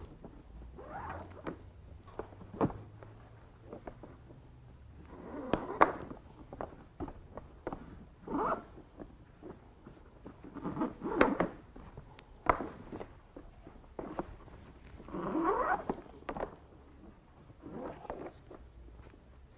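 Rescue rope being pulled by hand and drawn through itself and the SKED stretcher's plastic sheet as a square knot and safety knots are tied: irregular swishes of rope rubbing and sliding, with a few light clicks and knocks.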